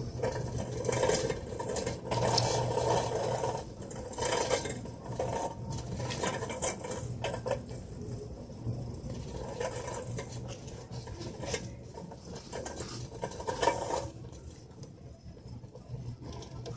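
Metal wire shopping cart rattling and clattering irregularly as it is pushed and its wheels roll over a hard store floor, over a steady low hum.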